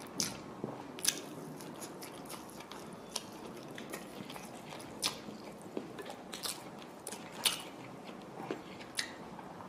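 A person chewing a mouthful of fried rice and fish with the mouth open, with sharp smacks of lips and mouth coming roughly once a second at irregular spacing, and the soft rustle of a hand scooping rice in a pan.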